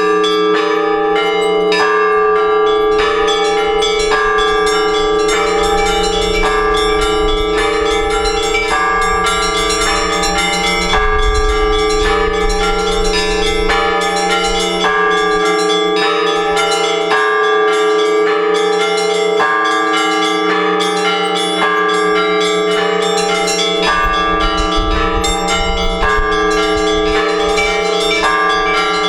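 Orthodox church bells rung together in a continuous peal. Quick repeated strikes of the smaller bells ring out over the steady hum of the larger bells.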